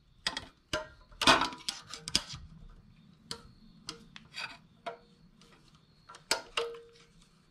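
Flathead screwdriver clicking and scraping against a snowblower engine's exhaust valve spring and spring cap, prying the cap up to unlock the valve: irregular metal ticks and clinks, busiest in the first couple of seconds.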